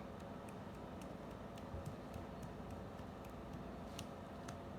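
Faint, irregular small clicks from a homemade hot-glue fidget snapper being handled and clicked, over a low room hum.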